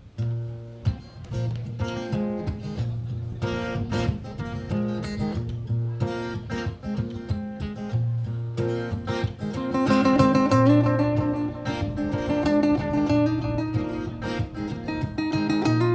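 Baritone guitar playing an instrumental song intro: plucked notes over a repeating low note, growing fuller and louder about ten seconds in.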